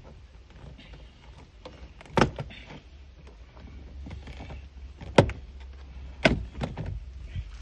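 Sharp plastic clicks and snaps as a plastic trim remover pries under the armrest of a Toyota Fortuner door trim and releases its clips: four clicks, two of them loud, over a low steady hum.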